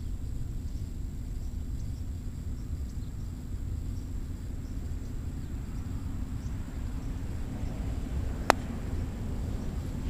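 A single sharp crack of a croquet mallet striking a croquet ball near the end, over a steady low rumble.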